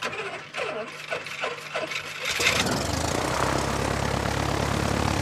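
A single-engine propeller light aircraft's piston engine sets in about two seconds in and runs steadily. It follows a series of short swooping sounds.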